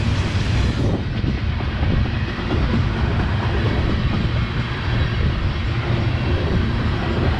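Kansas City Southern freight train rolling past close by: a steady, loud noise of its cars running on the rails.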